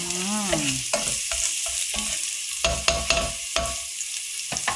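Diced white onion and garlic sizzling in hot oil in a nonstick pot as it is stirred with a silicone spoon, the spoon scraping and knocking against the pot several times, most in a cluster past the middle. A short wavering tone sounds in the first second.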